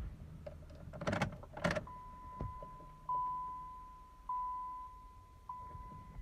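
A vehicle warning chime rings repeatedly, about one decaying chime every second or so, after two short clunks.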